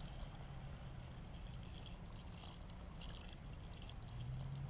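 Pink antifreeze pouring from a plastic gallon jug into a boat's freshwater-tank fill pipe, a steady pour with irregular bubbly gurgles as the tank is filled to winterize the water system.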